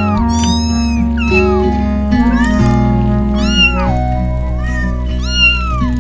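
A cat meowing again and again, about half a dozen short meows that rise and fall in pitch, over background music of steady held notes.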